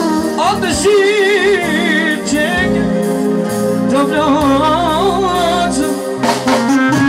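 Live band music: a man sings into a microphone with a wavering, ornamented melody and heavy vibrato, over electric keyboard accompaniment, with saxophone and drums.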